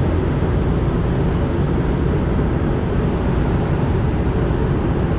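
Steady low rumble of rooftop HVAC equipment running, an even drone with no breaks.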